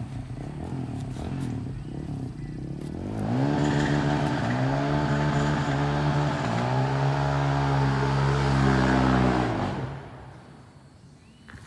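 Engine of a motor vehicle, likely a bike or ATV, revving up about three seconds in, dipping once about halfway and climbing again, then dying away near the end.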